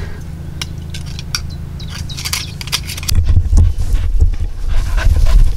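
Knives scraping and clicking against scallop shells as they are opened. About three seconds in, a loud low rumble takes over.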